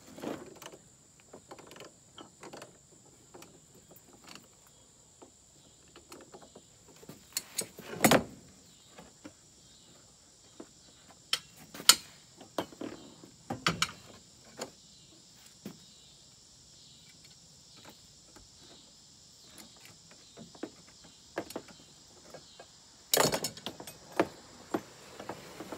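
Hand tools clicking and knocking against a hydraulic pump as its brass hose fitting is worked loose with pliers: scattered sharp metal clicks, with louder knocks about a third of the way in, around the middle, and a cluster near the end.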